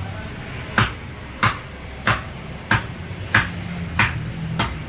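Butcher's cleaver chopping mutton into chops: seven sharp blows at an even pace, about two-thirds of a second apart.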